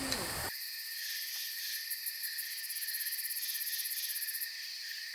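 A chorus of crickets and other insects chirping in rapid, even pulses. A lower sound cuts off sharply about half a second in, leaving only the insects.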